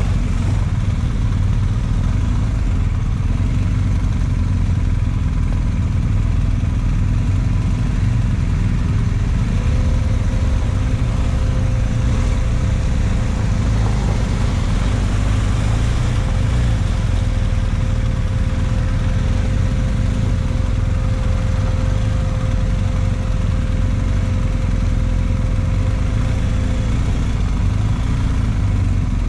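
Off-road vehicle engine running steadily with a heavy low rumble, its level even throughout. A thin steady whine joins it about a third of the way in and drops out near the end.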